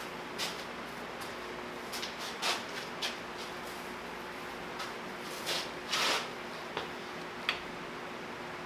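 Scattered light knocks and rustles as parts are handled and set up at the welding bench, about a dozen short sounds over a steady faint hum.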